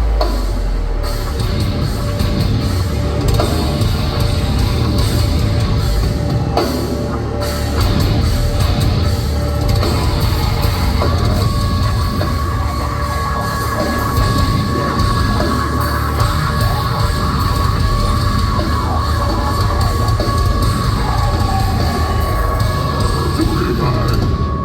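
Deathcore band playing live, with heavy distorted guitars and pounding drums. A steady high held tone comes in about halfway through and carries on over the playing.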